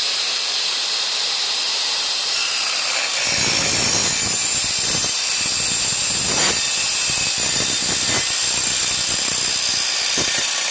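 Evolution EVOSAW180HD 7-1/4-inch steel-cutting circular saw running at full speed with a high steady whine. About three seconds in its blade bites into a steel tube, and a coarse, uneven grinding of metal cutting joins the whine until near the end.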